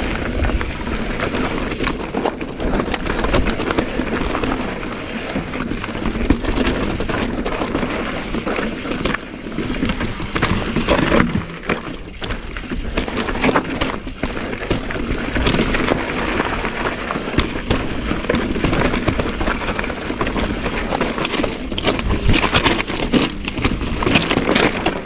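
Mountain bike riding down a rocky trail: tyres crunching over loose rock, with the bike rattling and knocking over the rough ground and a steady low rumble throughout.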